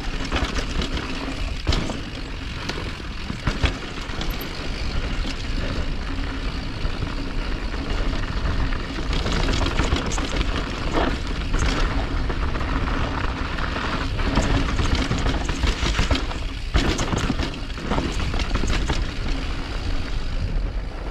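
Steady rushing wind noise on a moving helmet-mounted camera's microphone, with scattered knocks and rattles and a faint steady low hum underneath.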